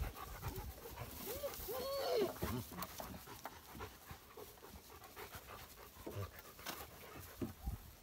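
Dog panting, with a short rising-and-falling whine about a second and a half in, among faint footsteps and rustling in grass.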